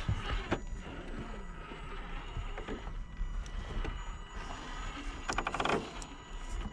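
Radio-controlled rock crawler's electric motor and drivetrain whirring as it crawls over rocks, with knocks and clicks of the tyres and chassis on stone. A quick run of clicks comes about five seconds in.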